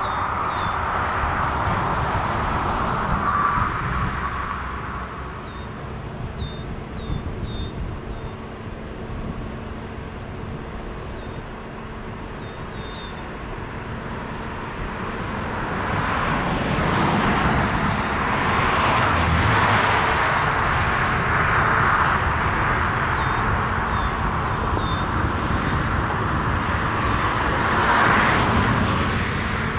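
Jet airliner engine noise: a broad rushing sound that eases off a few seconds in, then swells again from about halfway and holds. Faint short high chirps come and go over it.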